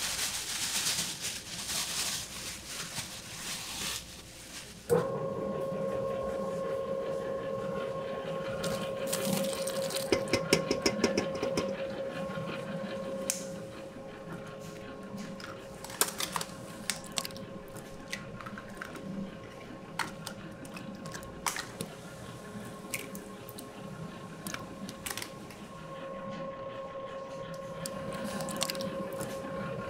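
Powdered ingredients poured from a plastic bag into a stainless steel mixing bowl, a steady hiss for about four seconds. Then a steady machine hum with a fixed tone, broken by scattered sharp clicks and taps as eggs are cracked and handled.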